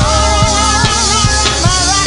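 Live gospel praise-break music: a band with drums and bass, with voices singing held, wavering notes over a steady beat.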